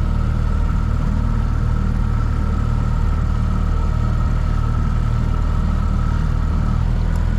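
Outboard motor of a small inflatable boat running steadily at trolling speed: an even low drone with a thin, steady whine above it.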